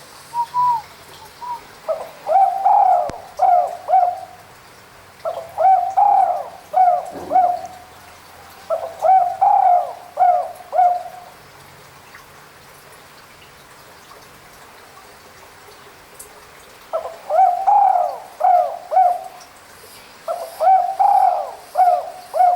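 Spotted dove (derkuku/tekukur) cooing: five phrases of a few rapid coos each, with a pause of about five seconds in the middle.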